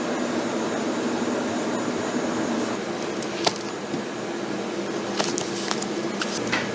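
Industrial electric bread slicer running with a steady mechanical hum, with a few sharp clicks about halfway through and near the end.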